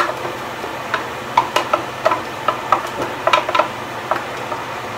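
Wooden spoon scraping and tapping chopped onion out into a stainless steel pan: a run of short, irregular clicks and knocks. A steady oven-fan hum runs underneath.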